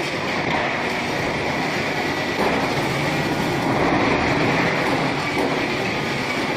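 QT12-15F concrete block making machine running, a loud, steady mechanical clatter and rumble that swells slightly about two and a half seconds in and again around four seconds.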